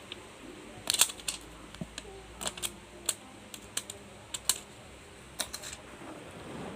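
Laptop keyboard being typed on: about a dozen sharp, irregular key clicks and taps.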